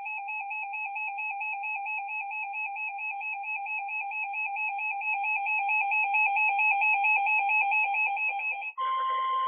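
Electronic emergency alert attention tone: a rapidly warbling high-pitched tone that grows louder, switching near the end to a steady, slightly higher tone.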